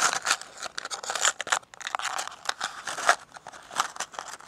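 Small hair clips clicking and rattling as they are sorted through and opened, a quick irregular run of sharp clicks with rustling in between.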